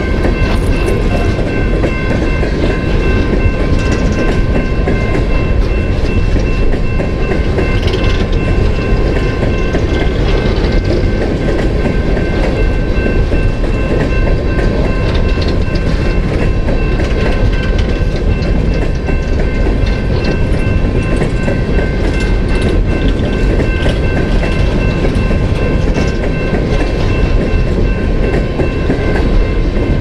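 A long freight train of BNSF coal cars rolling steadily through a grade crossing: a continuous rumble and clatter of wheels on rail. A steady high ringing from the crossing's warning bell runs over it.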